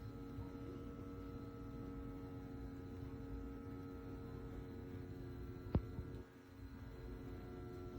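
KNQZE heated shiatsu foot massager running: a steady motor hum made of several held tones. A single click comes a little before six seconds in.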